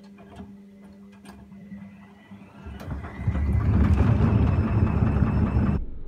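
Front-loading washing machine running with a half load: a steady motor hum with small clicks as the clothes tumble in the drum. About three seconds in, it swells into a much louder rumble that cuts off abruptly near the end.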